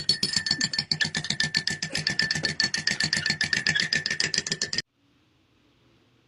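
Music with a fast, rapid-fire percussive beat of wood-block-like clicks over a sustained high note, cutting off suddenly about five seconds in, then faint room tone.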